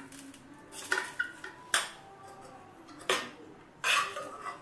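A spoon clinking and scraping against a glass bowl as rice and chicken are spooned in layers: several sharp clinks, then a longer scrape near the end.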